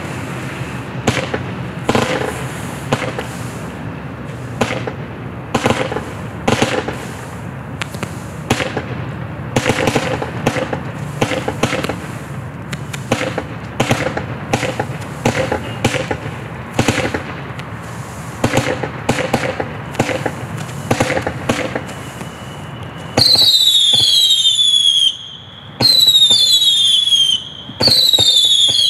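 Black Cat 61 Shot Classic 200-gram firework cake firing a steady string of shots, about one or two a second. Near the end it switches to loud shrieking whistles that fall in pitch, repeating one after another with two short breaks; this is the loudest part.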